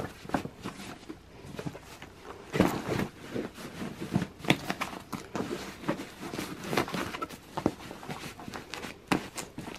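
Fabric packing cubes being pushed and settled by hand into a carry-on suitcase: irregular soft rustles and light knocks of cloth against the case lining.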